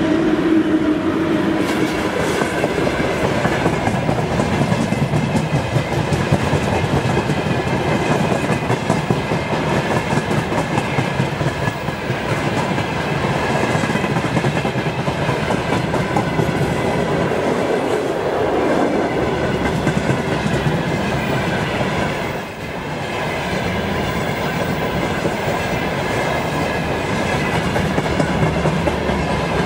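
Loaded freight train rolling past close by behind a VL10U electric locomotive: a steady rumble of wagon wheels on rail with continual clickety-clack over the rail joints. A hum in the first couple of seconds fades as the locomotive's rear section goes by.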